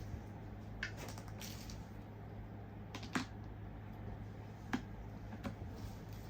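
Light handling clicks and taps from an iPad and its accessories being unboxed and handled: about five scattered ones, the sharpest just after three seconds in, over a steady low hum.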